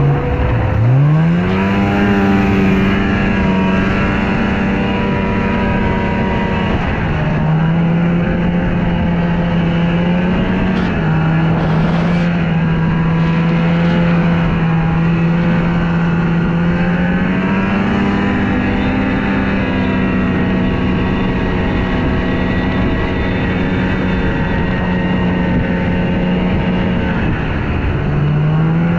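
Snowmobile engine running, its pitch climbing about a second in, then settling and shifting up and down a few times as the throttle changes.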